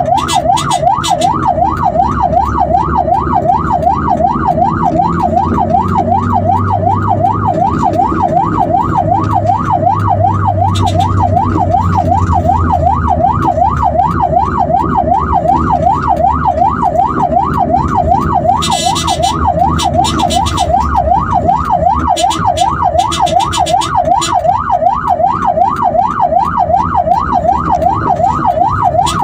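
Emergency vehicle siren in fast yelp mode, sweeping rapidly up and down in pitch without a break, over steady low engine and road rumble.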